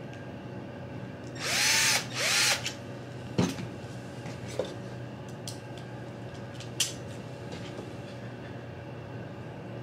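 Cordless drill with a screw bit driving screws into plastic chassis parts in two short runs, its motor pitch rising and falling each time. A sharp knock and a few light clicks follow.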